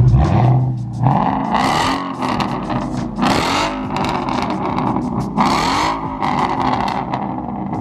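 Ford Mustang GT's 5.0-litre V8, fitted with an X-pipe in place of the baffled stock resonator, revved hard three times from idle. Each rev rises and falls in pitch, with a loud exhaust surge at the top.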